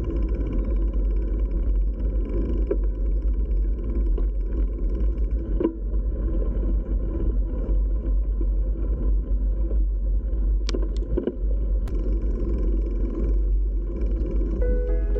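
Steady wind noise on a bike-mounted camera's microphone, mixed with tyre noise from a hybrid bicycle rolling on a paved path. A few short, sharp knocks come through, around the middle and again a little later.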